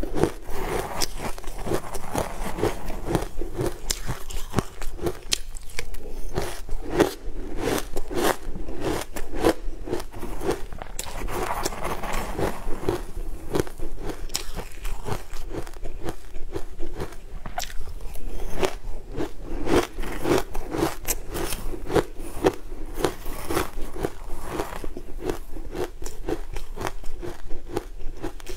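Crushed ice being crunched and chewed close to the microphone: a rapid, continuous run of crisp crunches.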